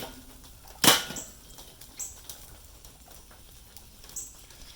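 One sharp knock about a second in, then a few faint clicks and taps, from hot charcoal being moved around in a Weber charcoal grill.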